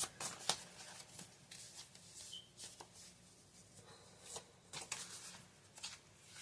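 Faint papery rustling and scattered sharp clicks of tarot cards being shuffled and handled.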